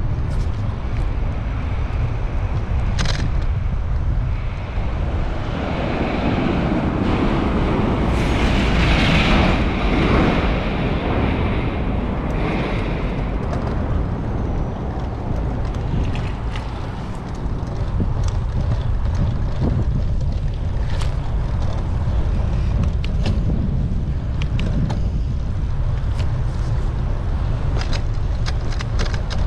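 Steady wind buffeting an action camera's microphone during a bicycle ride, a constant low rumble that swells louder and brighter about eight to ten seconds in. Scattered short clicks and rattles sound through it.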